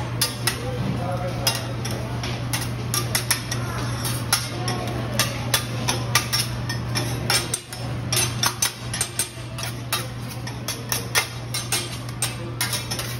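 Metal spatulas clacking and scraping on a teppanyaki griddle as a chef chops and presses a mound of rice, with many irregular sharp clicks over a steady low hum.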